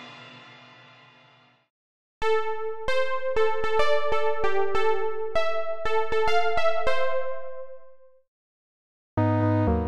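Xfer Serum software synthesizer playing a factory preset: a keyboard-like patch plays a melody of sharply struck notes, about two a second, then fades out. The previous patch's tail dies away at the start, and a new, bass-heavy patch begins near the end.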